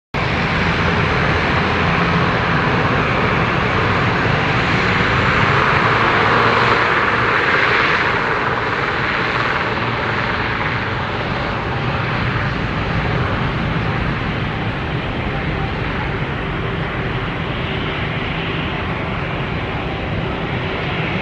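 Twin turboprop engines of an ATR 72-500 airliner running at takeoff power, a steady loud roar with a low propeller hum beneath it, swelling to its loudest about six seconds in and then slowly easing off.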